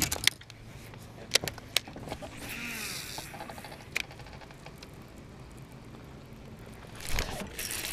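A few sharp knocks and clicks of gear being handled on a bass boat deck, then a swim jig cast on a baitcasting reel with a brief whir from the spool, and the reel ticking as the line is brought in. A louder thump comes near the end.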